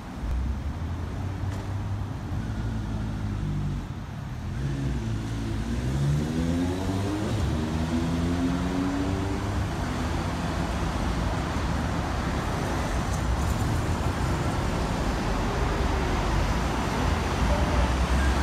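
Steady road traffic noise, cars and heavier vehicles passing on a busy road. About a third of the way in, one vehicle's engine rises in pitch as it accelerates, then holds steady.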